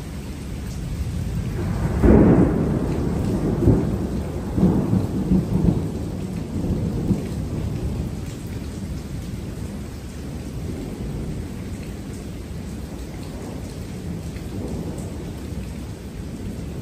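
Thunder: a sudden loud clap about two seconds in, followed by several seconds of uneven rolling rumble that dies away, over steady rain.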